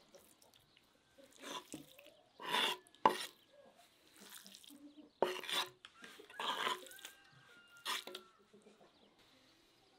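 Chopped raw liver being scraped off a wooden cutting board onto a stainless steel tray: about six short, wet slaps and scrapes, with a sharp knock about three seconds in.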